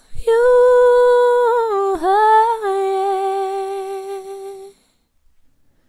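Unaccompanied woman's voice holding the long closing notes of a song. It takes a short breath, holds a steady note, dips and steps down to a lower note about two seconds in, holds that one, and stops just before five seconds.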